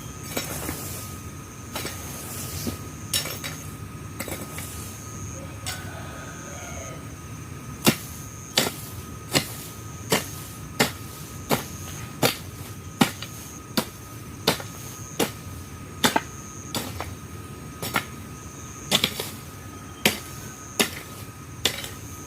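A hand tool chopping into weeds and soil: a few scattered strikes, then from about eight seconds in a steady rhythm of roughly one and a half sharp strikes a second.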